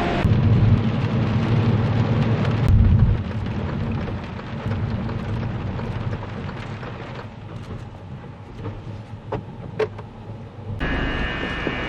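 Inside a car driving in heavy rain: a low road and engine rumble, loudest for the first few seconds and then easing as the car slows, with rain hitting the car and a few scattered sharp drop ticks.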